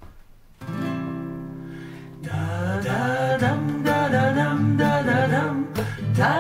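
Guitar intro: a single chord struck about half a second in and left to ring and fade, then a steady strummed rhythm starting about two seconds in.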